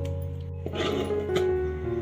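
Background instrumental music with long held notes that change pitch now and then. A brief burst of noise about two-thirds of a second in.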